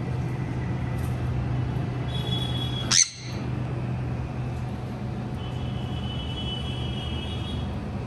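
Steady low hum of traffic coming in from outside, with one sharp, very short parrot squawk falling in pitch about three seconds in; a few faint high whistled tones come and go around it.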